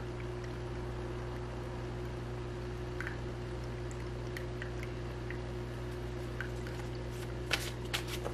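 Small tabletop rock water fountain trickling steadily over a steady low hum, with a few soft clicks near the end.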